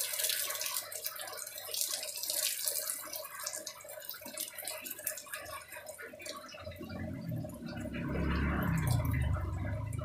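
Water jet from a homemade pump's outlet pipe splashing onto wet wooden boards, over a steady hum from the pump's washing-machine motor. A low rumble builds about two-thirds of the way in.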